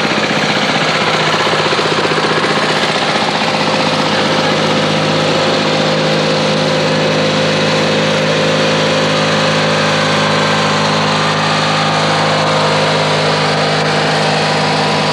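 Small engines of riding lawn tractors running steadily with a rapid knocking beat.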